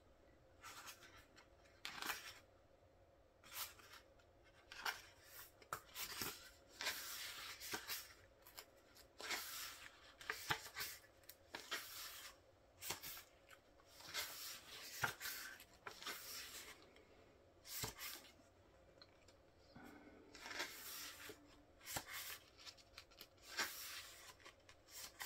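Pages of a paper album photobook being turned one after another by hand: repeated soft rustles and swishes of paper, irregular, every second or two.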